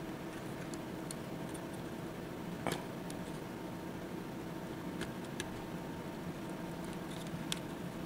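Faint clicks and scratches of Cat5e copper conductors being pressed by hand into the plastic slots of a patch panel's 110 block, the sharpest click about a third of the way in, with a few more in the second half, over a steady low hum.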